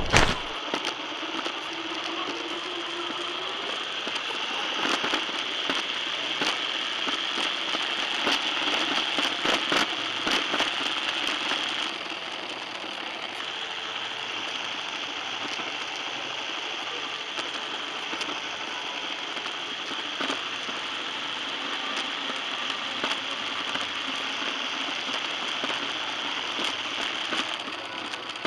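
Small electric RC car driving over a tiled floor, heard from a microphone on board: a steady crackling rattle full of small clicks, with a faint motor tone that shifts in pitch now and then. It is a little louder for the first dozen seconds.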